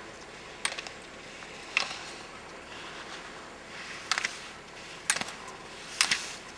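Slalom skiing: a racer's skis scraping across hard-packed snow through each turn, with a sharp clack about once a second as the plastic gate poles are struck; about five clacks, with a longer gap in the middle.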